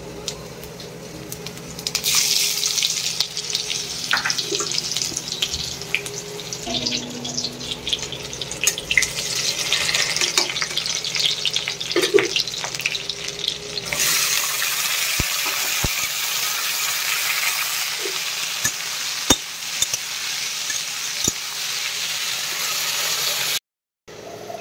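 Ivy gourd and potato frying in hot oil in an iron kadai: a loud sizzle with crackles. It starts about two seconds in and becomes denser and steadier about halfway through, with sharp pops.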